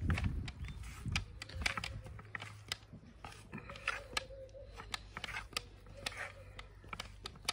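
Raw lamb liver and fat cubes being mixed with spices by hand in a metal tray: wet squelching with a string of irregular sharp clicks as pieces and fingers hit the tray.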